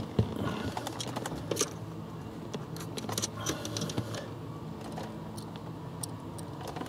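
Light clicks and rattles of a back-probe pin and meter leads being worked into the wiring connector of a starter enable relay, over a faint low steady hum.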